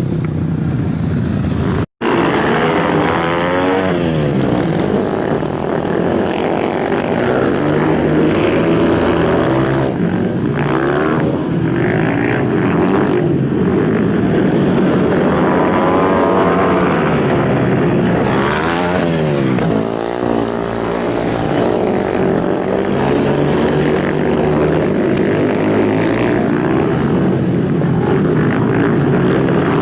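Racing motorcycle engines revving at high speed, several at once, their pitch rising and falling as they pass by. The sound cuts out for an instant about two seconds in.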